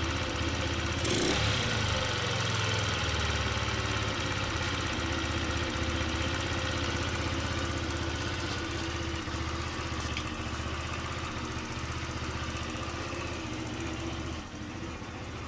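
Small scooter engine idling steadily, with a brief louder moment about a second in.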